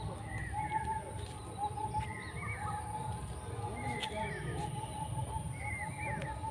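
Birds calling: a steady run of short chirps, with a higher phrase of a few quick notes repeated about every two seconds, over a low background rumble.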